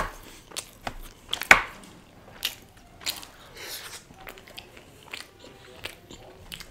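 A person chewing and biting a mouthful of pizza close to the microphone: irregular mouth clicks and smacks, the loudest about one and a half seconds in.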